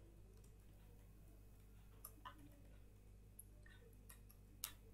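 Near silence with a steady low hum, broken by a few faint, scattered computer keyboard keystroke clicks, the loudest one near the end.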